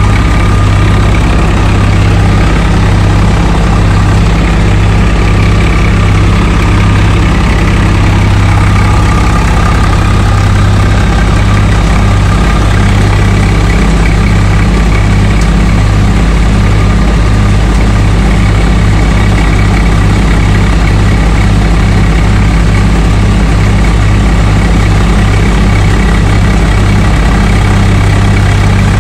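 A Swaraj 744 FE tractor's three-cylinder diesel engine runs loud and steady under load, driving a multicrop thresher through the PTO while lentil plants are fed in. The threshing drum and blower add a dense whirring rush over the engine's even beat.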